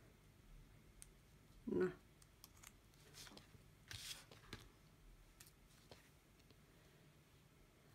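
Faint rustling and light clicks of glitter card and paper handled on a tabletop, with one louder short, dull knock just under two seconds in.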